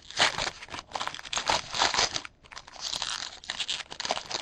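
A trading-card pack's foil wrapper being torn open and crinkled in the hands, in two stretches of rustling with a short pause between.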